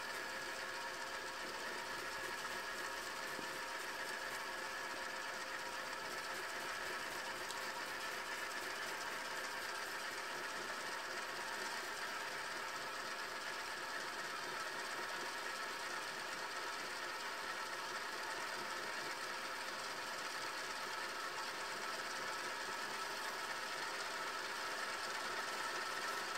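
Philips VR550 VHS deck fast-winding a TDK E300 cassette with its top cover off: a steady mechanical whir of the reel drive and spinning tape reels, with a few steady tones, growing slightly louder near the end.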